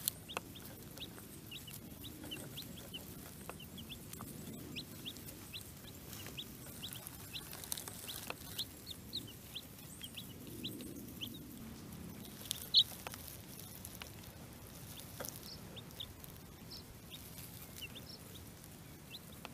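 Baby chicks peeping: a steady scatter of short, high peeps, several a second, with one louder peep about thirteen seconds in.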